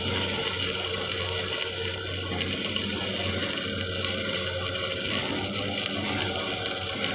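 Electric arc welding: the arc's steady crackle and sizzle over a low hum.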